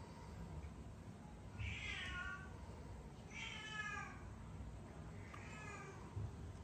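Cat meowing three times, each meow short and falling in pitch.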